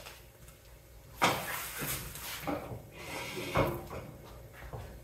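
Steel arms of a two-post vehicle lift being handled and swung out from under a pickup: metal scraping and clanking, with a sharp knock about a second in and another past three and a half seconds.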